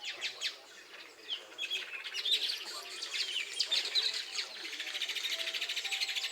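A colony of weaver birds calling together, with many overlapping chirps and squeaky notes. A fast, buzzy, rattling chatter joins in past the middle.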